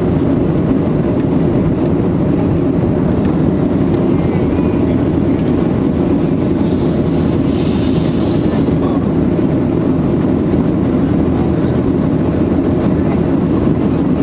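Steady cabin noise of an airliner in flight: the even, deep drone of the jet engines and the air rushing past the fuselage, heard from inside the cabin.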